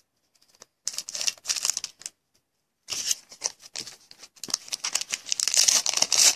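A foil trading-card pack wrapper crinkling and tearing as it is opened by hand: a short run of sharp crackles early, then continuous crinkling from about halfway that grows louder near the end.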